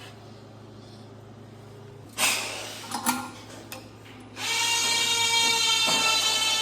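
A clatter and a few knocks, then a power drill starts about four and a half seconds in and runs steadily with a high whine, at work on the old furnace blower assembly.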